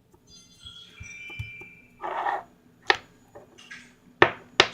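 Hand-played slime giving sharp popping clicks and a short squelch, with a brief chiming tone in the first couple of seconds.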